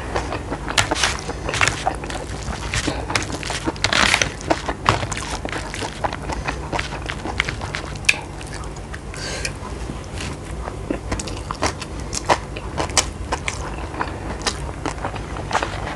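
A person eating close to the microphone: chewing and biting, with many small irregular crunches and clicks.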